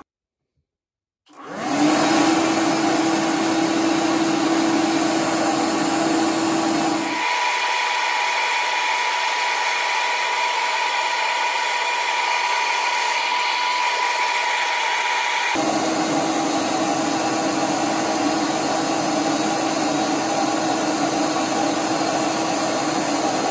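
A 3D-printed centrifugal compressor wheel driven by a 540-size electric motor at full power, running with a steady whine and rush of air. It is blowing into an air tank through a narrow outlet, where it chokes and builds no measurable pressure. Its whine jumps higher and the low end drops away for about eight seconds in the middle, then drops back.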